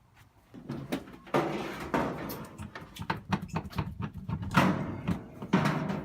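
Irregular thumps, knocks and scuffs of people walking down stairs.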